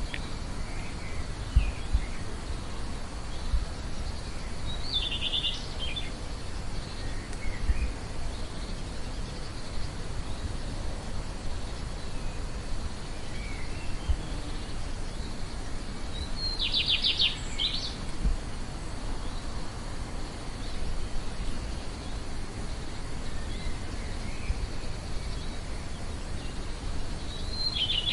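Outdoor birdsong ambience: small birds give scattered faint chirps and three louder rapid trills, near the start, in the middle and at the end. Beneath them runs a steady high insect drone and a low rumble.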